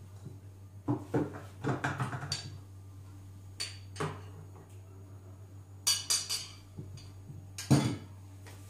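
Kitchen handling sounds: scattered clinks and knocks of glass, metal and plastic as the food processor's lid is taken off and set down and an egg is tipped from a glass bowl into the stainless-steel mixing jug with a utensil clinking against the bowl. A sharper cluster of clinks comes a little past the middle and the loudest knock near the end, as the glass bowl is set back down.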